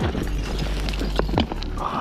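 Footsteps crunching and scuffing on loose rock and brush while scrambling down a steep bank, over background music. A faulty GoPro recording gives it an echoey sound.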